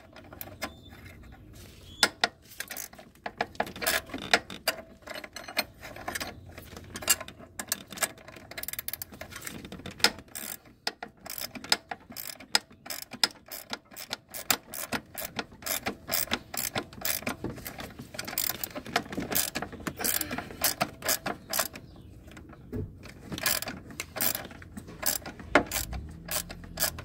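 Hand ratchet clicking in short, irregular strokes as it turns the forcing screw of a power steering pulley puller, drawing the pulley off the power steering pump shaft.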